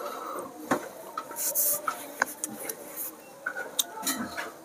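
Handwriting: irregular scratchy strokes of a pen on a writing surface, with a few sharp taps as the tip is set down and lifted.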